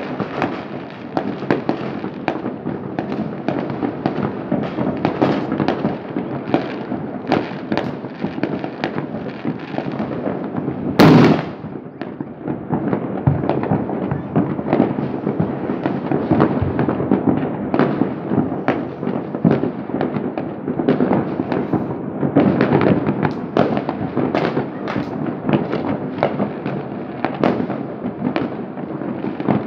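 Fireworks going off at many points across a city at once: a dense, continuous crackle of bangs and pops, with one louder bang about eleven seconds in.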